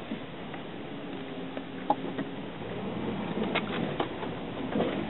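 Steady engine and road noise heard inside a car driving slowly, with a few light clicks and a sharper one about two seconds in.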